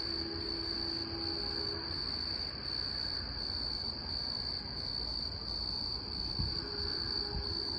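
Insects droning in one steady high note, over a low rumble. A distant Union Pacific locomotive's K5HL air horn sounds faintly as a held chord in the first two seconds and again near the end, as the train approaches.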